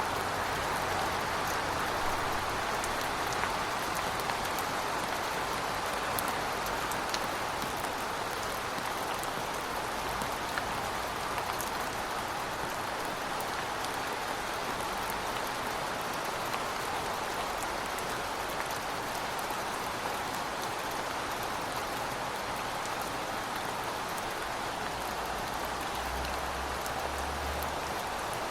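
Heavy rain falling steadily, an even hiss with scattered drop ticks. A brief low rumble near the end.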